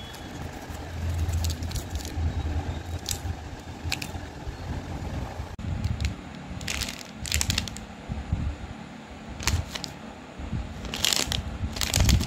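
Plastic candy wrappers crinkling and crackling in several short bursts as packets are handled, the loudest near the end, over a low rumble of hands handling near the microphone.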